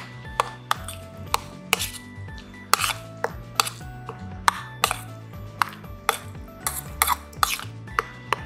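Metal spoon clinking and scraping against a stainless steel bowl as it mixes grated turnip, about two strikes a second, over background music.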